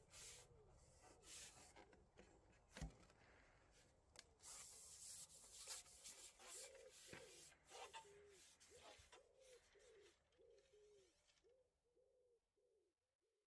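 Near silence: faint rubbing and light clicks as a carbon fishing pole is pulled back and handled. From about six seconds in, a pigeon coos faintly, about two notes a second.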